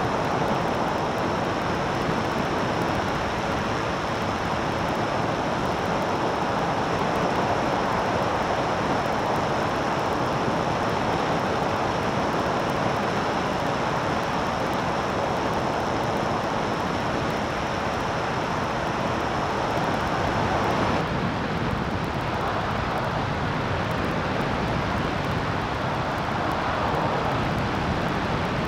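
Steady rush of air and engine drone of an open-cockpit light aircraft in flight, heard from a camera on the airframe. Near the end the noise changes suddenly and loses much of its hiss.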